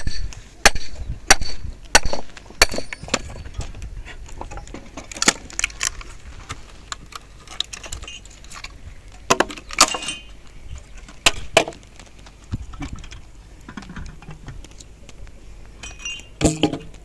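Firewood being struck and broken: about a dozen sharp wooden knocks and cracks at irregular intervals, some with a brief clinking ring, with a quieter stretch after the middle and a last cluster near the end.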